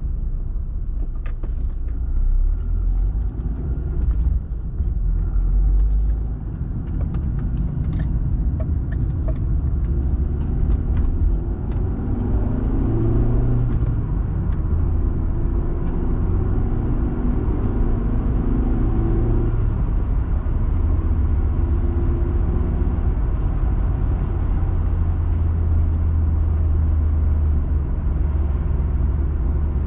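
Car driving along a road, heard from inside the cabin: a steady low rumble of engine and tyres, with a few light clicks and knocks in the first half.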